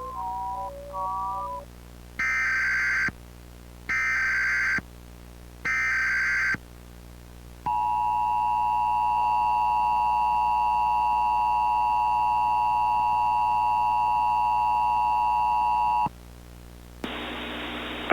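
A short synthesizer melody ends. Then come three short bursts of Emergency Alert System SAME header data tones, a warbling digital screech about a second each with brief gaps between. They are followed by the two-tone EAS attention signal, held steady for about eight seconds. A second of radio hiss comes near the end.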